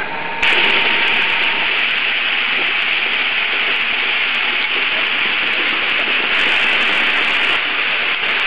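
Bottle-cap printing machine running at high speed: a steady, even hissing rush of machine noise that starts abruptly about half a second in.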